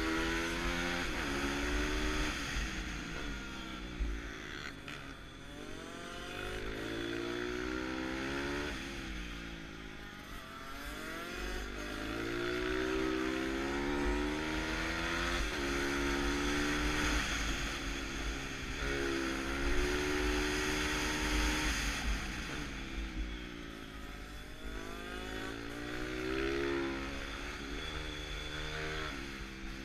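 Bucci F6 pit bike's engine heard from onboard, revving hard and easing off again and again as it accelerates down the straights and slows for the corners. Wind rumbles on the microphone underneath.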